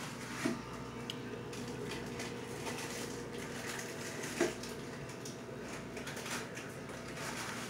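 Aquarium sponge filter bubbling steadily over a low steady hum, with two light clicks, one about half a second in and one about four and a half seconds in.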